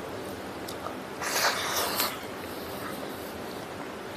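Close-up eating sounds: a handful of rice is put into the mouth by hand and chewed, with a short noisy mouth sound a little over a second in.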